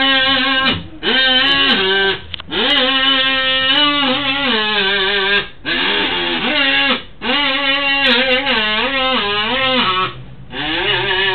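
A melody of held, wavering notes in short phrases of one to three seconds, split by brief pauses, with quick trills in places.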